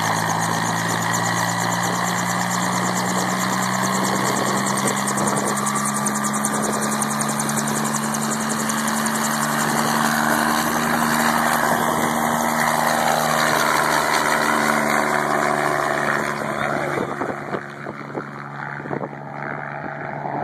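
Small piston helicopter of the Bell 47 type running on the ground with its rotor turning, the engine note rising slightly as it powers up. About three-quarters of the way through the sound eases off as it lifts away.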